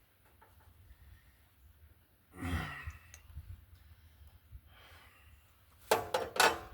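A man sighs heavily about two and a half seconds in. Near the end comes a quick cluster of sharp knocks, the loudest sound here.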